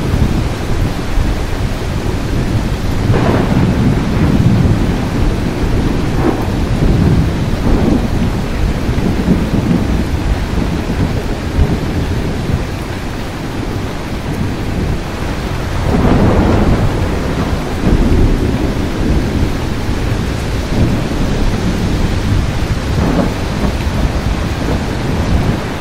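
Thunderstorm: steady rain with thunder rumbling underneath, the thunder swelling about three seconds in and again about sixteen seconds in.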